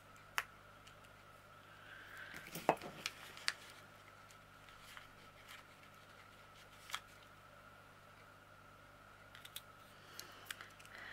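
Light clicks and taps of small metal craft tools and plastic being handled on a tabletop, over a faint steady hum. The clicks are scattered, with a small cluster about two to three and a half seconds in and a few more near the end.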